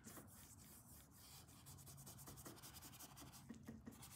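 Faint rubbing strokes of a paintbrush working dark oil paint onto textured paper canvas.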